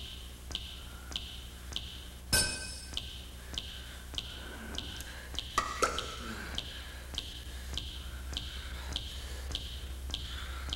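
Regular short ticks, a little under two a second, over a low steady hum, with one ringing clink of a metal spoon against a ceramic cereal bowl about two seconds in.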